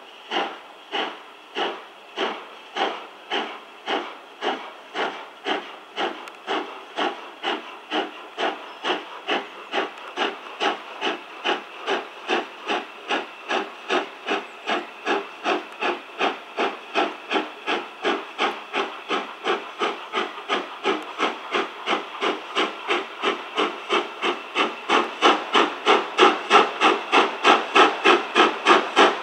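Exhaust beats of steam locomotive 32424, an Atlantic, pulling away with its train. The chuffs quicken steadily from about one a second to two or three a second as the locomotive gathers speed, and they grow louder near the end.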